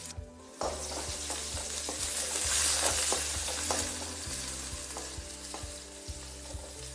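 Freshly added chopped onions sizzling in hot oil in a metal kadai, stirred with a wooden spatula that scrapes and knocks against the pan. The sizzle starts about half a second in and is loudest a couple of seconds later.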